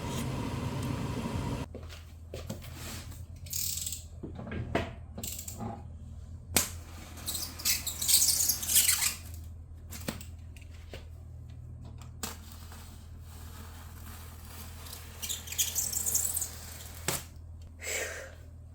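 Scattered clicks and knocks with several bursts of rustling, over a steady low hum; a loud steady noise cuts off sharply about two seconds in.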